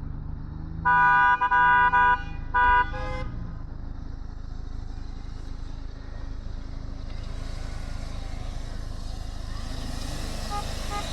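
A vehicle horn sounds three times in quick succession over a steadily running engine: two longer blasts, then a short toot. A hiss builds up in the second half.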